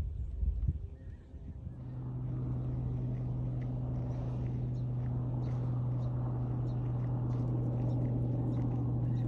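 A steady motor hum starts about two seconds in and holds on, slowly getting louder, with faint ticks above it.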